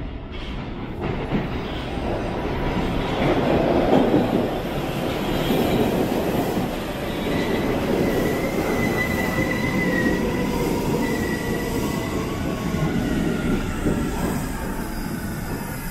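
Boston MBTA Red Line subway train pulling into the station: a rumble that builds over the first few seconds and stays loud. About halfway in, a high steady squeal of the wheels joins it.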